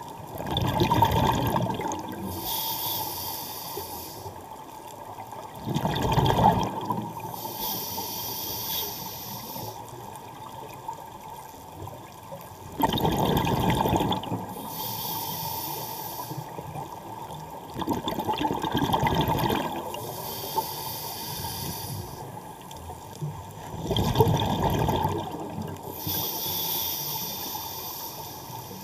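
Scuba diver breathing through a regulator underwater: five slow breath cycles, each a loud bubbly gurgle of exhaled air followed by a high hiss of inhalation, repeating about every five to six seconds.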